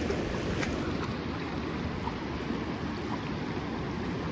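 Steady rushing of cold river water, an even noise with no rhythm.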